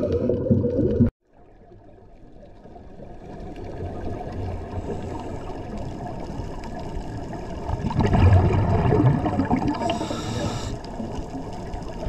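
Underwater sound of scuba divers' breathing regulators: gurgling and rumbling bursts of exhaled bubbles. It cuts off abruptly about a second in, fades back in, and swells into a louder bout of bubbling a few seconds before the end.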